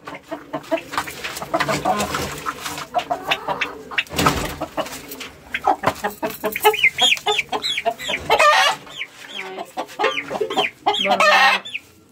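Hens clucking and calling, with a quick run of short rising-and-falling calls in the second half. A dull thump comes about four seconds in, and a loud burst of squawking or wing noise near the end.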